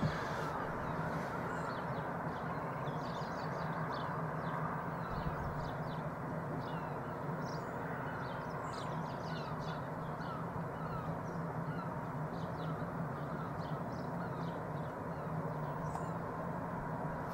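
Birds calling and chirping, many short high calls following one another, over a steady low rumble and hum.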